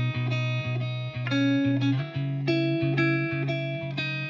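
Background music: a melody of short notes over a steady low note.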